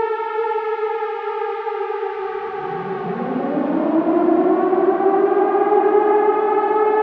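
Air raid siren wailing. Its held tone sags and fades, then about two and a half seconds in a new tone winds up from low and rises to a steady high pitch by about five seconds in.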